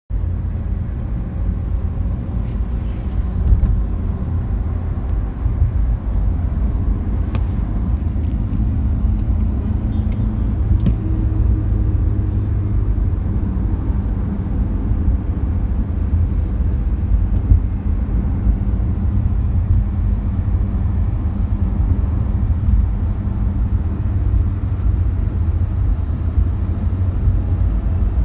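Steady low rumble of a car's engine and tyres on the road, heard from inside the moving car's cabin, with a couple of faint clicks.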